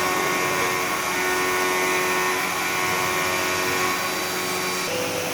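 CNC vertical machining center cutting a metal profile: a steady machine sound with a whine of several held tones over a hiss. Near the end the pitch pattern changes as a new tone comes in.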